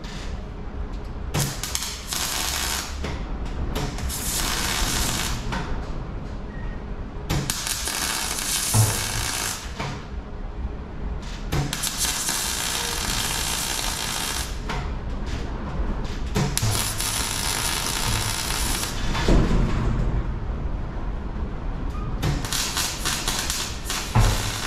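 MIG welder laying short tack and plug welds on a classic Mini's steel wing and inner-wing panels: about six bursts of arc noise, each one and a half to three seconds long, with short pauses and a few knocks between them.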